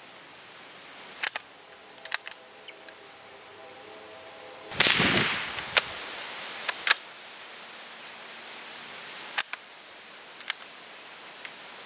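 Single-shot Winchester Model 67 bolt-action .22 rifle being fired and reloaded: a string of sharp cracks and clicks, the loudest a crack about five seconds in with a short rushing tail, the others short clicks of the bolt being worked.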